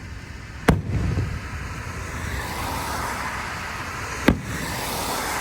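Fireworks going off: two sharp bangs about three and a half seconds apart, the first followed by a brief low rumble, over a steady hiss that grows louder partway through.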